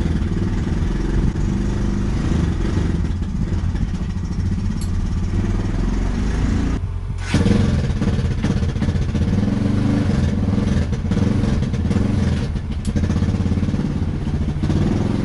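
Old skid steer's engine running steadily, with a brief dip about seven seconds in.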